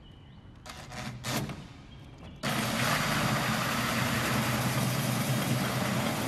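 Cordless drill cutting into the acrylic door of a Rans S6 for a vent opening. After a couple of short blips, it starts suddenly about two and a half seconds in and runs steadily, a hum under a broad grinding hiss.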